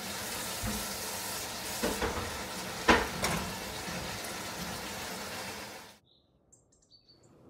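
Fritters deep-frying in hot oil in a cast-iron karahi, a steady sizzle, with metal tongs knocking against the pan a few times; the loudest click comes about three seconds in. The sizzle cuts off about six seconds in.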